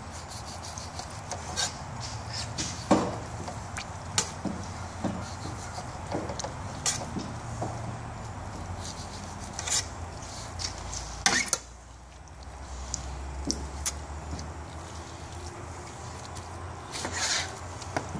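Fillet knife slicing along amberjack fillets and scraping the cutting board: scattered short scrapes and knocks over a steady low rumble.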